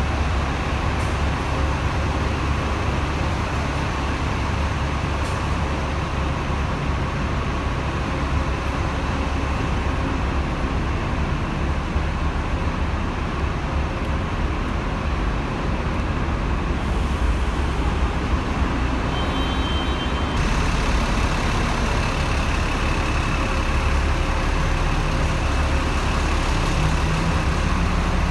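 Diesel engines of double-decker buses idling at a bus terminus: a steady low rumble that holds throughout.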